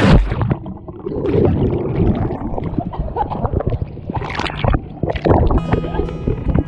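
A person cannonballing into a cold swimming pool: one loud splash at the start, then several seconds of water splashing and sloshing.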